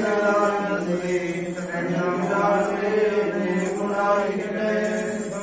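A voice chanting on a near-steady pitch, its sung lines running continuously without a break.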